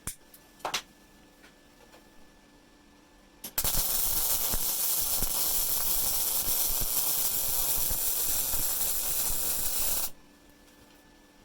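Rohr MIG-250MI inverter MIG welder, set at power 4 and wire speed 3, running a bead on 5.5 mm mild steel. The arc strikes about three and a half seconds in, crackles and hisses steadily for about six and a half seconds, and cuts off suddenly. Two short clicks come in the first second.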